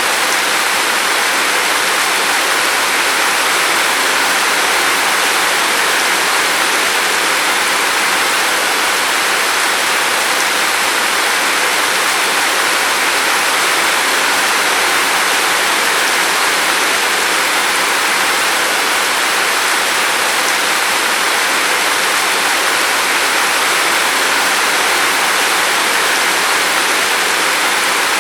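Steady rain falling: an even, unbroken hiss of countless drops with no single drops or thunder standing out.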